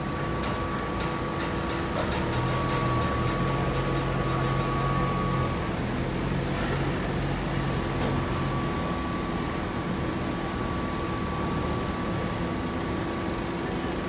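Steady hum of hydraulic baling machinery with a forklift running close by; a rapid run of clicks in the first couple of seconds, and a lower engine note that comes in about two seconds in and drops away before the middle.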